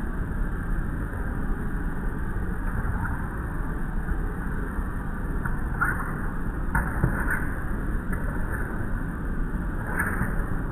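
Steady low outdoor rumble with no clear pitch, with a few faint short scuffs from about six seconds in.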